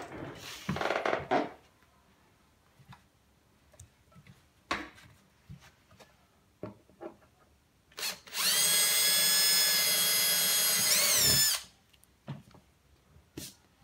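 Cordless drill running at high speed for about three seconds, drilling a small hole through the baseboard as a steady high whine. The pitch dips briefly near the end as the bit loads, then the drill stops.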